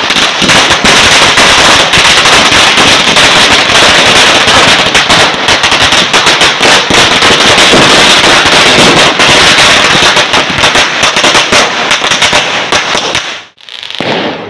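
Firecrackers going off in a rapid, unbroken run of loud cracks that stops abruptly about 13 seconds in, followed by one short burst.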